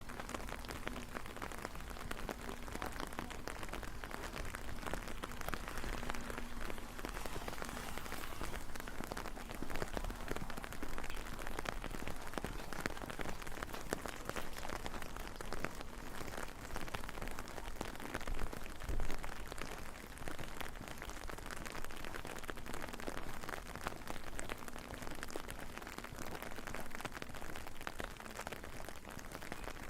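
Steady rain falling on hard surfaces, a dense hiss of drops with many small individual drop ticks.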